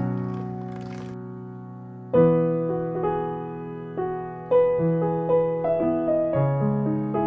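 Background piano music: slow chords, each struck and left to fade, with a new chord every couple of seconds.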